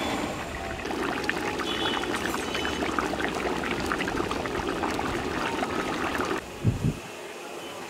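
Thick fish curry bubbling in a large kadai: a steady seething with many small pops. It stops suddenly near the end, followed by a single low thump.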